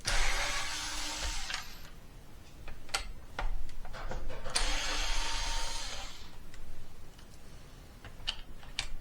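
Power drill-driver backing screws out of a plastic climate control unit housing, in two short runs of a few seconds each, with small clicks and handling knocks between them.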